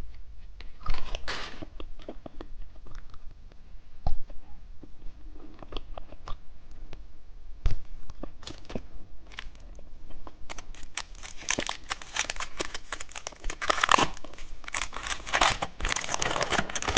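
Plastic candy packaging handled with scattered clicks and rustles, then torn open and crinkled steadily through the second half.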